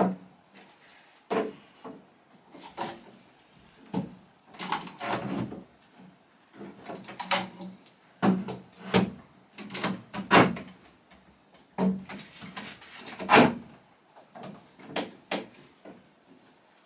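Long aluminium bar clamps being laid across a wooden chest of drawers carcass and tightened for a glue-up: a string of irregular clunks and knocks with short scrapes as the metal bars and clamp heads meet the wood.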